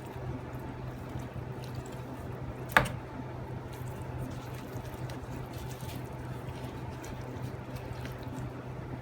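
Hands pulling the bones and meat apart on a roast chicken, making soft wet squelching and small clicks, with one sharp knock nearly three seconds in, over a steady low hum.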